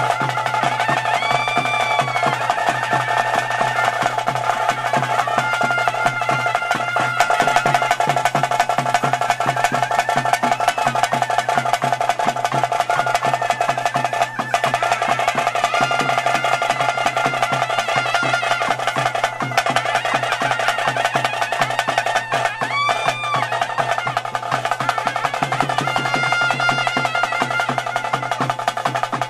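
Bhuta kola ritual music: drums beating a fast, dense rhythm, with a wind-instrument melody gliding over a steady held tone.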